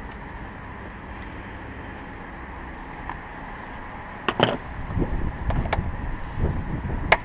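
Wind buffeting the microphone. From about four seconds in come several sharp clicks and knocks as gloved hands handle the plastic air intake box and trim in the engine bay, the loudest click near the end.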